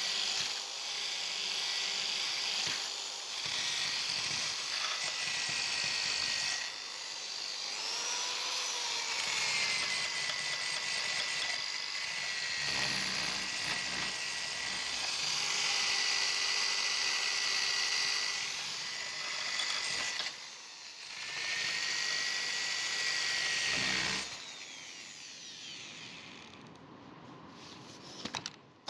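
Electric drill spinning an abrasive flap wheel against a rusty steel wrench, grinding off the rust. A steady high whine with grinding hiss, dropping briefly a few times as the load changes, then much quieter over the last few seconds.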